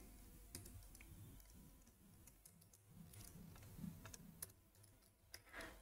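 Faint computer-keyboard keystrokes: a few sparse, separate clicks of typing over near-silent room tone.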